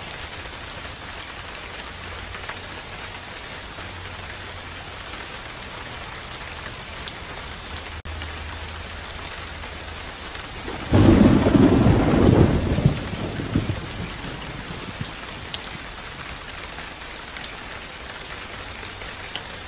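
Steady rain, with a sudden loud clap of thunder about eleven seconds in that dies away over two or three seconds.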